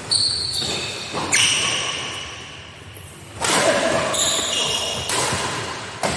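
Badminton rally in an echoing hall: sharp racket hits on the shuttlecock about every one to two seconds, mixed with high squeaks of court shoes on the floor.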